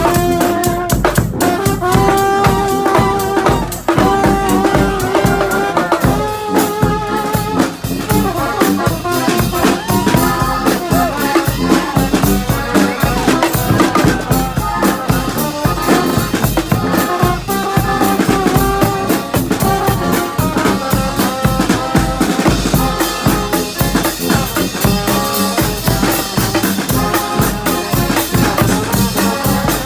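Live brass marching band playing over a steady drum-kit beat: the horns hold long notes and move through a melody.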